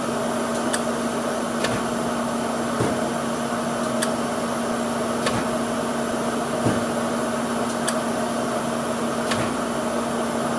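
Mazak Integrex CNC mill-turn lathe running with its spindle-motor cooling fan: a steady hum with light ticks about once a second.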